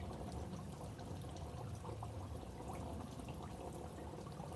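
Water running steadily into a bath, pouring and trickling, with small drips.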